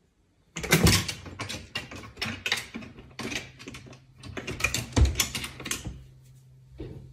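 A cat scrambling up a narrow wooden ladder onto a cabinet: a rapid, uneven clatter of claws and paws knocking on the wooden rungs. It starts suddenly about half a second in and dies away near six seconds.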